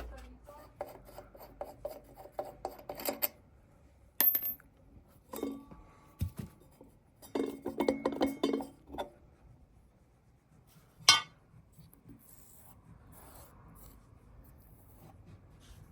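Tools and metal parts clicking and rattling in two runs of quick clicks, with a few single sharp clicks between them, as the screws around the tub of a Bosch Exxcel washing machine are taken out.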